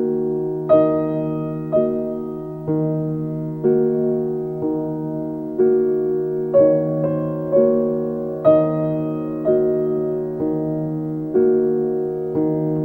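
Background music: a piano playing a slow, even run of chords, about one a second, each dying away, over a held low note.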